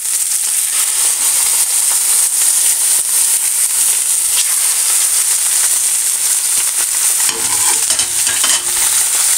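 Salmon pieces and sea bass fillets frying in hot olive oil in a cast iron skillet, the sea bass skin side down, with a steady sizzling hiss.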